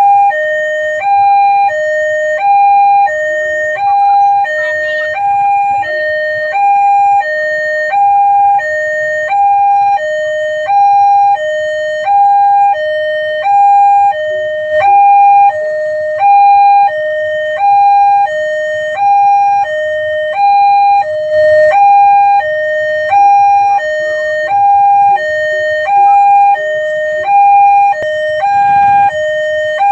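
Railway level-crossing warning alarm sounding, a loud electronic two-tone signal alternating between a higher and a lower tone, about one pair each second.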